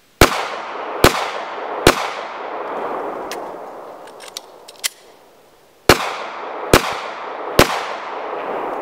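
Six 9mm pistol shots from a Glock 43, fired in two quick strings of three (under a second apart), the second string about four seconds after the first. Each shot is followed by a long echo, and a few faint clicks fall between the strings.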